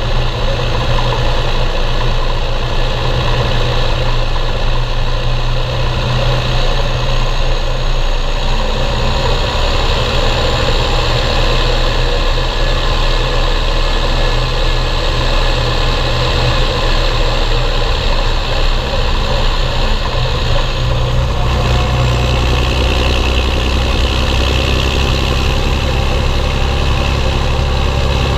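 Belarus 1221.3 tractor's six-cylinder diesel engine running steadily while pulling trailers loaded with wheat; the engine note shifts about three-quarters of the way through.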